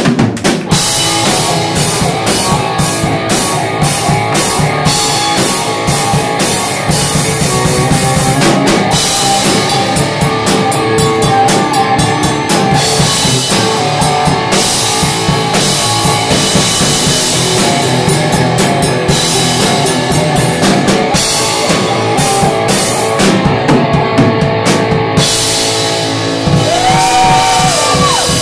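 Live rock band playing an instrumental stretch: a drum kit keeping a steady beat with cymbals, under amplified guitar.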